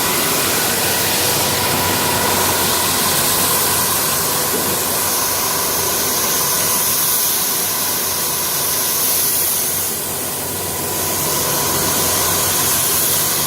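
Automatic carpet-washing machine running: a steady mechanical hum with several held tones under a hiss, dipping briefly about ten seconds in.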